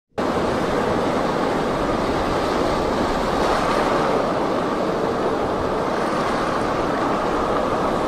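Ocean surf with wind: a steady rushing wash of breaking waves.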